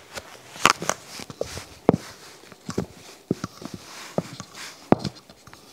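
A spatula scraping and knocking against the inside of a stainless steel mixing bowl as soft bread dough is worked out of it, a string of irregular clicks and scrapes about once a second.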